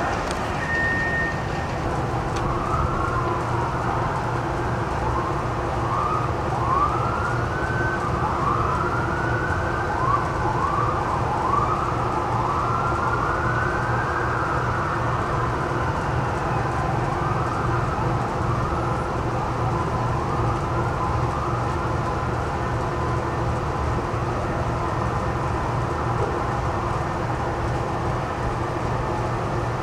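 Emergency vehicle siren wailing, its pitch sweeping up and down again and again and fading out about twenty seconds in, over a steady low rumble of city traffic.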